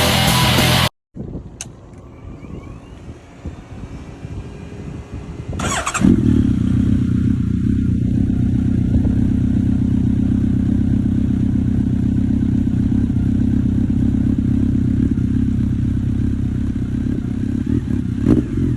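Honda CB1300 Super Bol d'Or SP's inline-four engine, breathing through a Striker full exhaust with a Maverick titanium silencer, fires up about six seconds in and settles into a steady, loud idle. It gives a few short bursts near the end.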